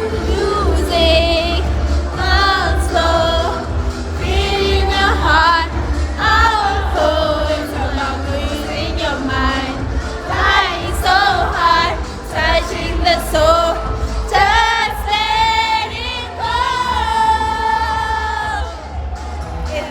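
Background music: a song with sung vocals over a steady bass.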